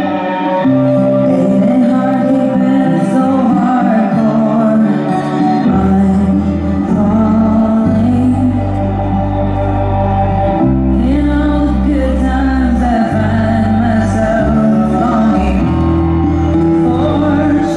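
Slow music with a singing voice over long, sustained bass notes.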